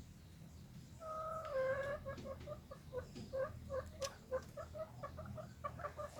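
Bangkok rooster clucking: one drawn-out call about a second in that dips slightly in pitch, then a run of short clucks, about three or four a second.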